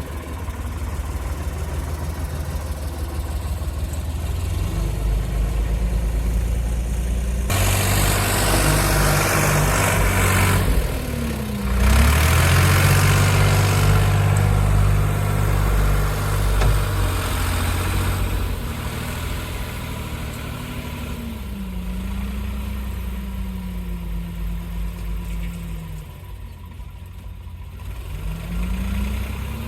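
Doosan DX35z mini excavator's diesel engine running, its pitch rising and falling as the machine works. About seven seconds in, a loud rushing, crashing noise starts over the engine and lasts about ten seconds.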